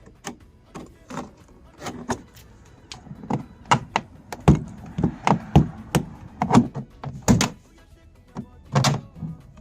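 Plastic trim on a Honda car door being pried off with a trim removal tool: a string of irregular sharp clicks and knocks, busiest in the middle.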